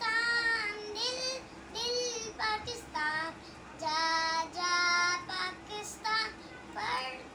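A young boy singing a song unaccompanied, holding notes between short pauses for breath.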